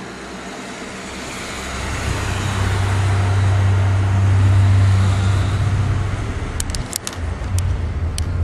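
A loud, low droning rumble that swells in over a couple of seconds, holds, then wavers unsteadily, with a few sharp clicks near the end.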